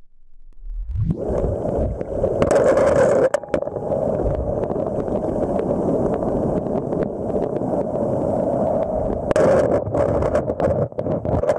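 Muffled steady rush of flowing water heard through a camera held underwater, starting about a second in, with scattered small knocks against the housing.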